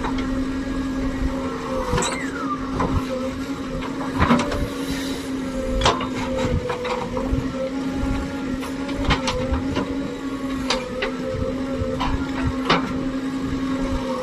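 JCB backhoe loader's diesel engine running at a steady speed, with irregular metallic clanks and knocks from the working arm and bucket and a short falling squeak about two seconds in.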